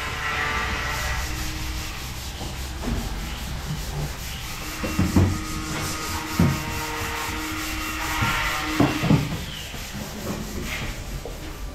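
Steady rubbing noise of construction work, with a few short knocks about five, six and a half, and nine seconds in.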